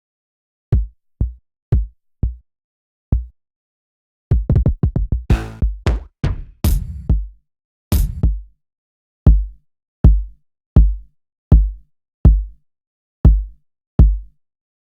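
Single drum sounds auditioned one at a time on a Native Instruments Maschine, mostly low kick drums with a quick decay. A quick run of brighter, snare- and hat-like hits comes in the middle, and the last several kicks come at an even pace, under a second apart.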